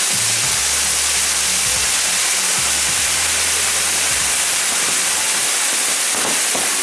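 Maltese mechanical ground firework: gerbs driving several spinning firework wheels give a loud, steady, dense hiss of spraying sparks. Low music plays underneath.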